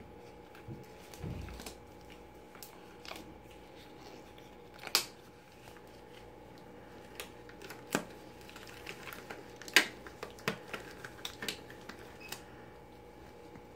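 Disposable exam gloves being pulled onto the hands: rubbery rustling with scattered sharp snaps, the loudest about five and ten seconds in, and a soft low thump about a second in.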